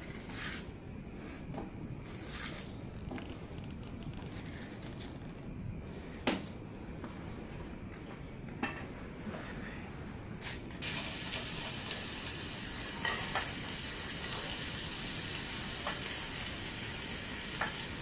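Onion and garlic dropped into hot oil in a cooking pan start frying, a steady loud sizzle that begins abruptly a little past halfway through. Before that there are only a few light kitchen knocks and clicks.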